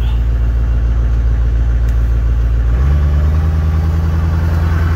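LB7 Duramax 6.6-litre V8 turbo-diesel idling after a cold start, heard from inside the cab. About three seconds in, the idle steps up to a higher, steady speed as the high idle is switched on.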